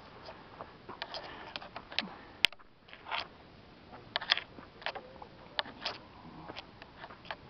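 Footsteps crunching on a loose gravel and rock trail at a walking pace, about two steps a second, with one sharp click about two and a half seconds in.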